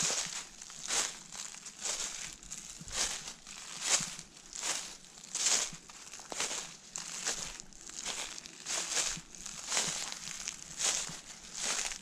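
Footsteps walking through a thick layer of dry fallen leaves, each step a crisp crunch and rustle, at a steady walking pace of roughly one step every three-quarters of a second.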